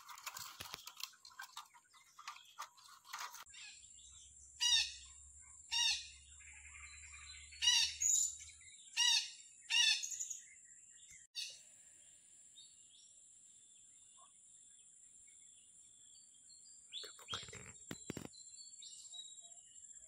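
Parakeets (betet, red-breasted parakeets) giving short, harsh calls, six in quick succession about halfway through, against a steady high-pitched drone. There is a brief rustle near the end.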